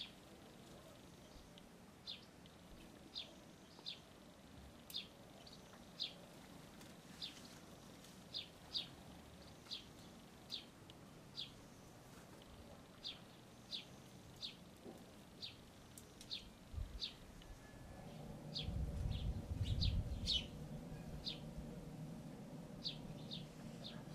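House sparrows cheeping: short, sharp chirps repeated roughly once a second, with a few quick pairs. From about three-quarters of the way in, a low rumble rises under them and then stays faintly to the end.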